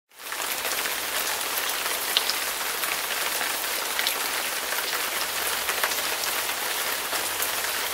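Heavy rain falling: a steady, dense hiss with scattered sharp drop ticks.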